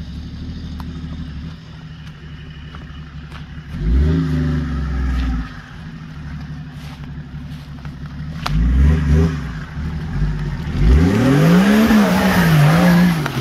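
Off-road vehicle's engine revving hard in surges while driving through deep mud: a rev about four seconds in, another about eight and a half seconds in, then a longer, louder one near the end whose pitch climbs and wavers under a rushing noise.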